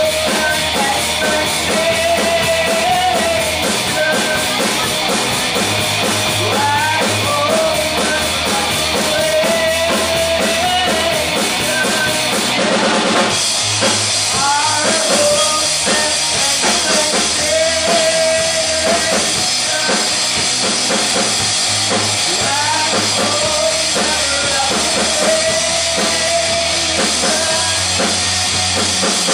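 Rock band playing live: drum kit and a bass line that changes note every couple of seconds, under guitar and a bending melody line. The sound gets brighter about halfway through.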